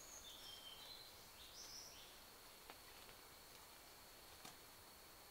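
Faint rainforest ambience: a few short bird chirps in the first two seconds over a thin, steady, high insect drone, with a faint click or two later on.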